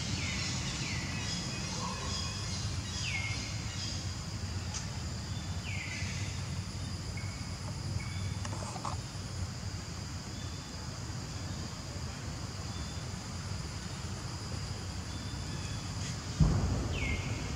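Outdoor forest ambience: a steady high insect drone over a low rumble, with a few short high-pitched calls that each fall in pitch, spaced seconds apart, and one loud thump near the end.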